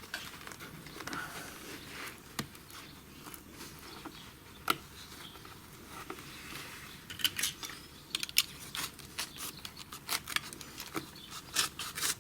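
Irregular sharp clicks and crackles from working old, stiff carpet and its hardened backing. They are sparse at first and come thick and fast in the second half.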